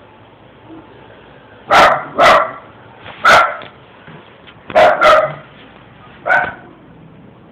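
A dog barking six times in short, loud barks, two of them coming in quick pairs.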